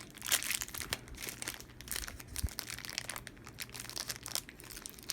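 Packaging crinkling and rustling by hand in irregular sharp crackles as a camera microphone is unwrapped.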